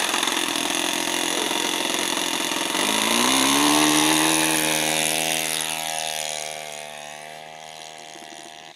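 O.S. 26 four-stroke glow engine of a small Stinger RC plane running. About three seconds in its pitch rises and then holds steady, and the sound then fades away gradually.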